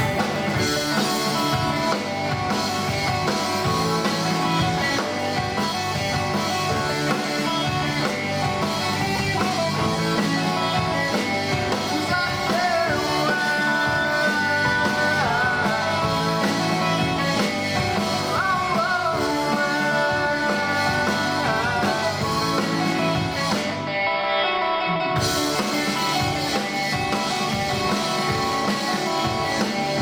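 Live rock band playing: electric guitars, bass, drums and keyboard, with a high melody gliding and bending between notes in the middle stretch. About 24 seconds in, the cymbals drop out for a moment before the full band comes back in.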